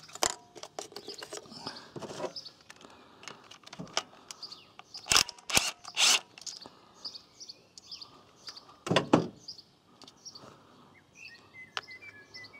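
Sharp clicks and knocks of a driver and socket working on an ignition coil's hold-down bolt, several close together about five to six seconds in and again about nine seconds in. Birds chirp over and over in the background.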